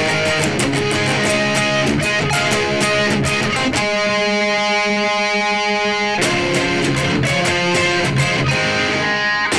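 Telecaster-style electric guitar in C# G# D# G# C D# tuning, playing a fast picked and strummed math-rock passage. Near the middle the picking stops and a harmonic is left to ring for about two seconds, then the fast playing resumes.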